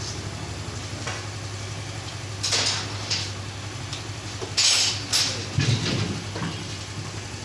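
Suzuki GR 150's single-cylinder engine idling steadily, with several sharp metallic clinks of tools or parts over it, a couple in the first half and a quick cluster in the second.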